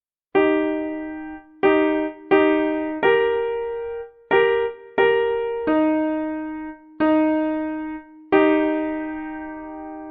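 A slow tune played in two-part harmony on a keyboard with a piano sound: about nine two-note chords, each struck sharply and fading, some cut short when the keys are released.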